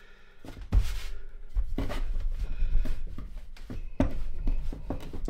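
Rolling pin rolling out chilled dough on a wooden tabletop: rubbing, rolling noise with a few sharp knocks.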